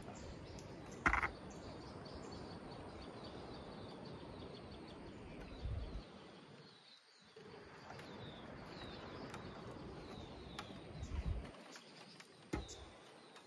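Faint outdoor ambience: a steady hiss with short, high chirps repeating throughout. A brief sharp sound about a second in, and a few soft low thumps and a click later on.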